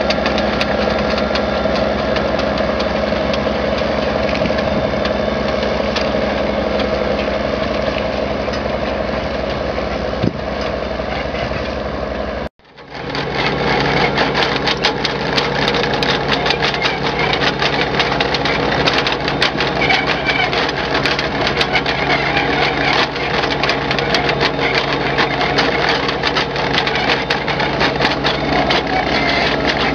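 Heavy diesel truck engines running steadily, hauling wind-turbine blades. The sound cuts off abruptly about twelve seconds in, and another steady truck engine sound takes over.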